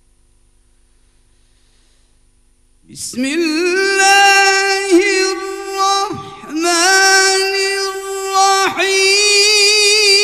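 A man's voice chanting a Quran recitation through a microphone. After a quiet pause of about three seconds he starts, holding long, high, ornamented notes with a wavering vibrato, broken twice by short breaths.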